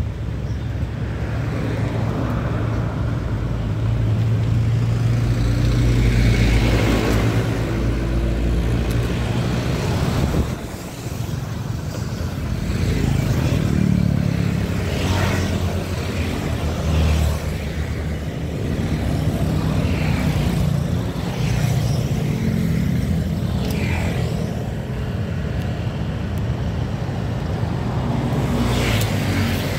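Road traffic passing close by: cars, vans and motorcycles driving past with a steady low engine-and-tyre rumble that swells as each vehicle goes by, easing briefly about ten seconds in.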